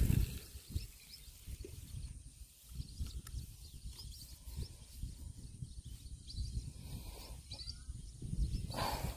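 Outdoor ambience: an uneven low rumble with faint, short high chirps scattered through it, and a louder rush of noise near the end.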